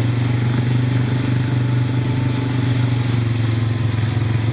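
ATV engines running steadily while under way on a dirt trail, a constant low engine drone with no revving.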